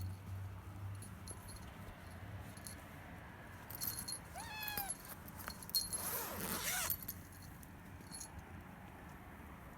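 Kittens meowing from inside a cage, crying to be let out: a short meow about four seconds in, then a louder, harsher cry around six seconds. Light clicks and rattling come with the cries.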